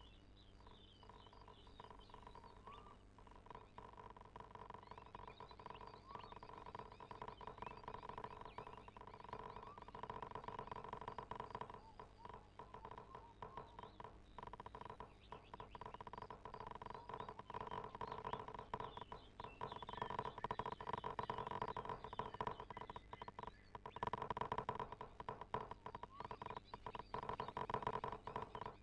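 Toshiba washing machine running: a steady motor hum with rapid rattling and clicking that grows louder over the stretch.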